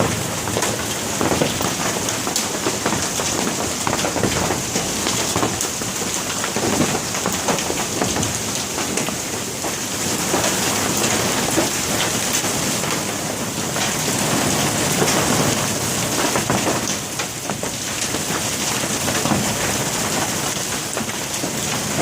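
Hail and heavy rain pelting down together: a steady downpour hiss thick with many separate hailstone impacts.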